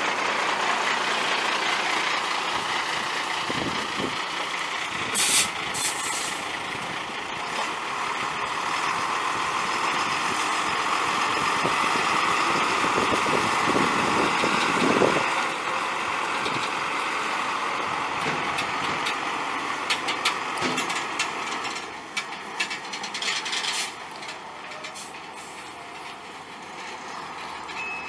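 International DTA360 5.9 L inline-six turbo diesel of a 1992 International 4700 dump truck running steadily, with a short air hiss about five seconds in and a few knocks and clatter later on.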